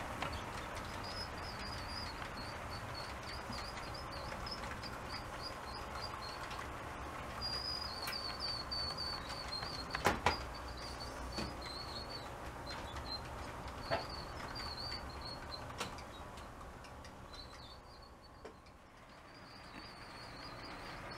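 HO-scale model freight train rolling along the layout's track: a steady low rumble of wheels on rail with a wavering high squeak in quick chirps, and a few sharp clicks, the loudest about halfway through. The sound fades briefly near the end.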